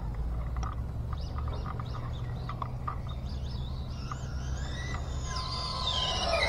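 Electric RC drag car's motor and gear whine climbing in pitch as it speeds up, then falling steeply as it slows, getting louder near the end. Birds chirp briefly in the first few seconds over a steady low rumble.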